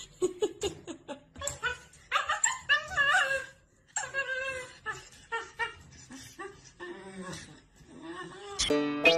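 A husky making drawn-out, wavering whining and howling calls in several bursts. A plucked-string music track starts near the end.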